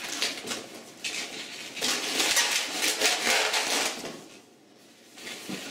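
Latex 260 modelling balloon squeaking and rubbing under the hands as a bubble is measured off and twisted, with a short quiet pause about four seconds in.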